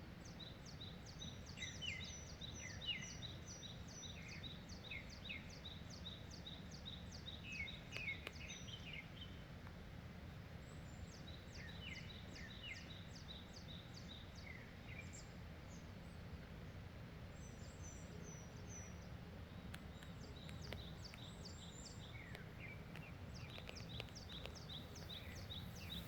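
Several small birds singing: quick series of short, high repeated notes, with lower chirps scattered between them. A steady low wind rumble runs underneath.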